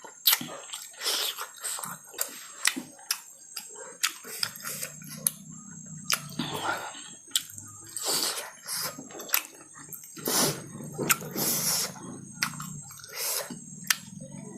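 Close-miked eating of fatty pork: wet chewing, lip smacks and slurps, with many sharp mouth clicks.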